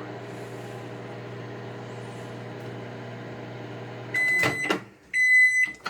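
Microwave oven running with a steady hum that stops about four seconds in, followed by two loud, high beeps marking the end of the heating cycle.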